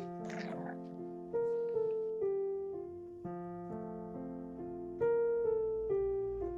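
Slow piano music: a gentle melody of single notes and chords, each struck and left to ring and fade before the next.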